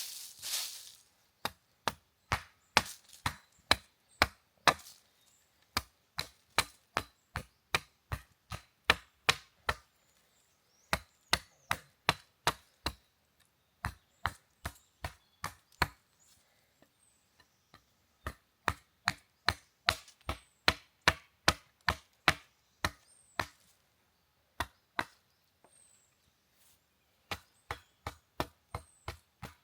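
Chopping: a blade striking in quick, evenly spaced strokes, about two to three a second, in runs of several strokes broken by short pauses.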